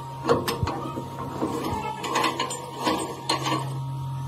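Metal clicks and scrapes as a metal ring with a handle is fitted and turned on a threaded metal cylinder, in irregular clusters, over a steady low hum.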